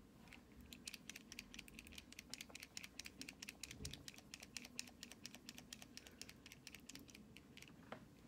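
Faint, rapid typing: a quick run of light clicks, several a second, stopping about half a second before the end, followed by one sharper click.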